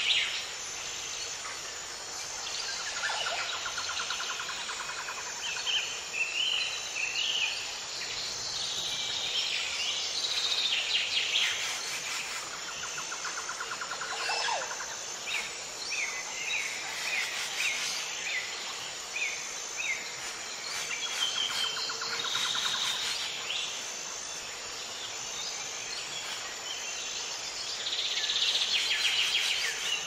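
Several wild birds singing and calling, with repeated chirps and rapid trills, over a steady high insect note.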